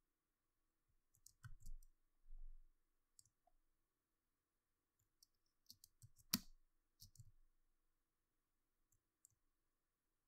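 Near silence broken by faint, scattered clicks and taps of computer input, in small clusters, with a few soft low thumps in the first third; the sharpest click comes a little past halfway.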